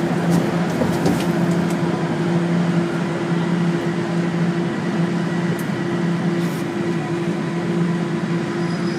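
Toronto Rocket subway train heard from inside the car as it runs through a station: the steady rumble of wheels on rail with a steady low hum under it.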